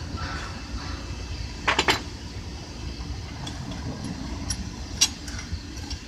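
Hand tools clinking against metal: a quick cluster of sharp clinks about two seconds in and a single one about five seconds in, over a steady low rumble.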